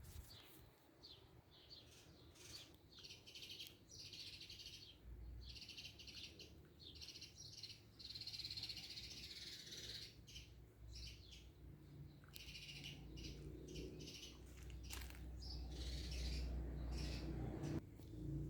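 Small birds chirping and twittering over and over, faint and high-pitched, with a low rumble underneath that grows through the second half.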